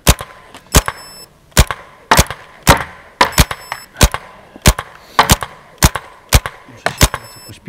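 Paintball marker firing a steady string of single shots, about two a second, each a sharp pop. The marker's velocity is turned up higher than usual.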